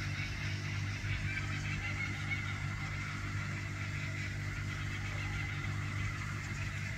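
Steady night-time background: a constant low hum with a thin, even high-pitched tone over it, unchanging throughout.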